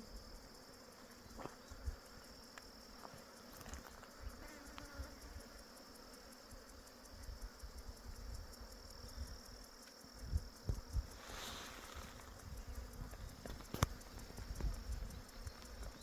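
Faint bush ambience: a steady high-pitched insect chorus, like crickets, with a fly buzzing past the microphone about two thirds of the way in. Patchy low rumble and a few small ticks sit underneath.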